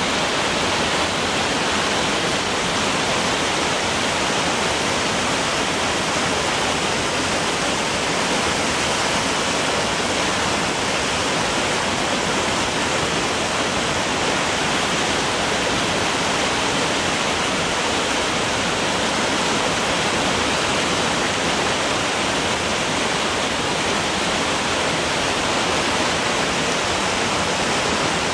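Loud, steady rush of water from an alpine stream tumbling over rocks below a cascading waterfall.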